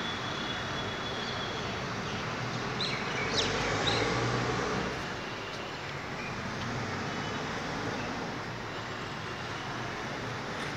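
Steady outdoor background noise, a low hum like distant road traffic, a little louder for a couple of seconds near the middle, with a few brief high chirps about three to four seconds in.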